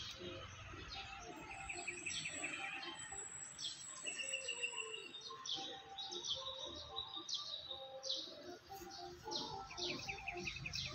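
Small birds chirping and twittering throughout, many short high calls and trills overlapping, with a thin steady high whine between about two and five seconds in.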